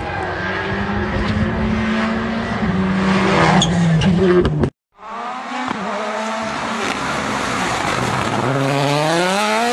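Rally car engines at speed. First a rally car's engine grows steadily louder as it approaches and passes close, and cuts off abruptly just under five seconds in. Then a Ford Puma Rally1's turbocharged engine revs up and drops back through several gear changes.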